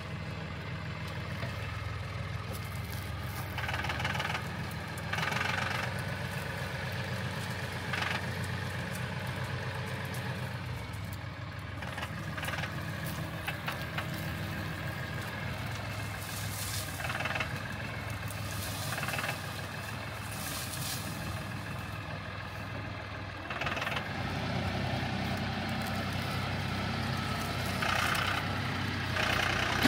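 Compact tractor's diesel engine running steadily while its front-end loader lifts and tips a bucket of bedding. The engine sound swells briefly several times and is loudest near the end, as the bucket is raised high.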